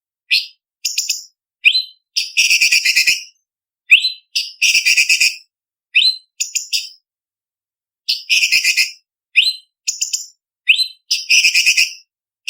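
A cucak cungkok leafbird singing: short high whistled notes, many rising sharply, alternating with four harsh, rapid chattering trills of about a second each.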